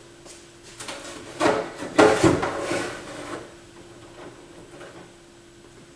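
Things being handled and moved about on a workbench: a few knocks and scrapes, loudest around two seconds in, then quieter handling over a faint steady hum.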